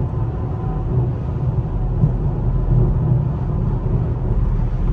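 Steady low rumble of engine and tyre/road noise heard inside the cabin of an Infiniti M37S cruising at highway speed.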